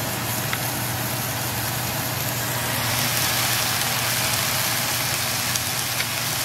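Ground chicken sizzling as it browns in a nonstick skillet: a steady frying hiss, with a few faint clicks of a wooden spoon stirring in the pan.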